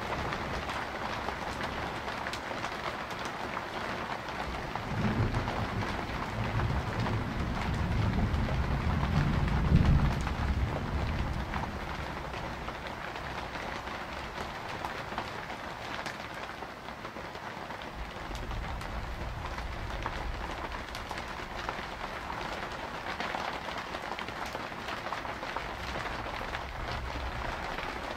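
Steady rain falling, with a long low thunder rumble that swells about five seconds in, peaks around ten seconds and dies away, and a fainter rumble later on.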